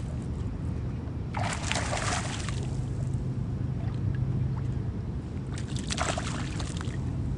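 A small hooked bass splashing at the surface beside a kayak, twice: about a second and a half in and again about six seconds in, each splash lasting about a second. A steady low rumble runs underneath.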